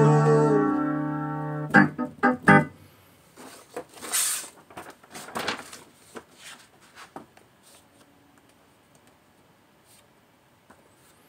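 Piano's closing chord held and dying away, followed by a few short chords. Then the pages of a paper songbook are handled and turned, with soft rustling and light knocks.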